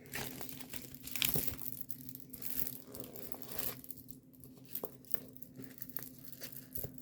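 Packaging crinkling and tearing as it is handled and opened, busiest in the first four seconds, then sparser light rustles and clicks.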